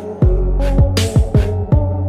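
Background music with a steady beat: sharp percussive hits and deep bass notes that slide down in pitch, several times a second.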